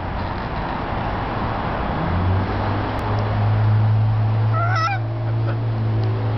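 A low, steady drone with a clear pitch, like a motor running, sets in about two seconds in and holds. Just before the middle, a blue-and-gold macaw gives one short call.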